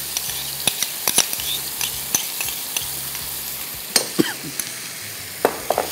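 Boneless chicken strips sizzling in oil in a non-stick wok over high heat. Scattered sharp clicks and scrapes come from the pan being stirred as tomato paste is added.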